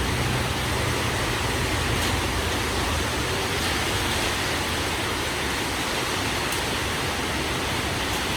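Heavy rain pouring steadily, with a low rumble of wind underneath.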